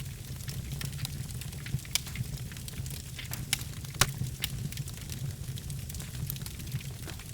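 Wood logs burning in a fireplace: a steady low rumble of flame with frequent irregular crackles and pops, the sharpest pop about four seconds in.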